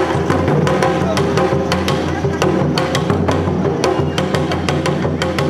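Awa odori festival music: the narimono band's drums (odaiko and shime-daiko) and hand-struck kane gong beat a fast, driving rhythm of several sharp strikes a second, under a sustained bamboo flute melody.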